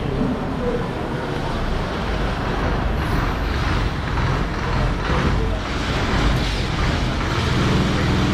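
Diesel engine of a Volvo B11R multi-axle coach running, with road and air noise of the moving bus. A hissing rush swells in the middle, and the engine's hum grows steadier and more pronounced near the end.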